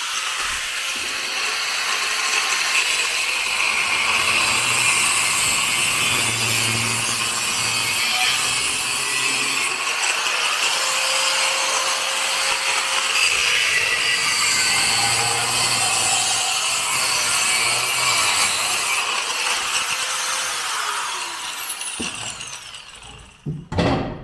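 Angle grinder cutting into the old exhaust under an Opel Manta, running steadily with its pitch shifting as it bites into the metal. It is switched off about 22 seconds in and winds down with a falling whine, followed by a couple of sharp knocks.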